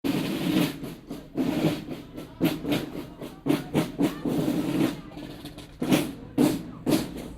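Boys' marching band drumming: a run of drum strokes about two a second, with a short lull a little past the middle.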